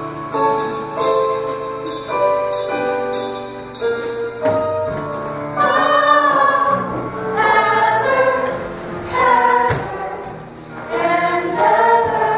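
Live musical-theatre band playing chords over a steady drum beat, joined about five seconds in by an ensemble of singers singing together in phrases.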